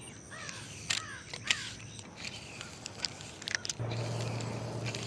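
Crows cawing several times, short downward-sliding calls, with a few sharp clicks among them. Near the end a spinning reel is cranked for a second or so, a steady low whirring hum.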